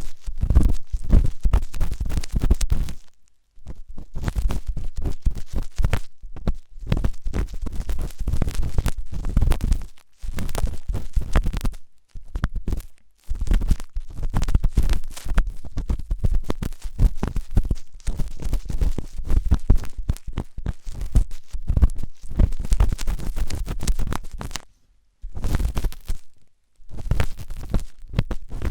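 Ear pick scraping and scratching hard on an ear-shaped ASMR microphone in rapid strokes with a deep rumble. The strokes stop briefly several times.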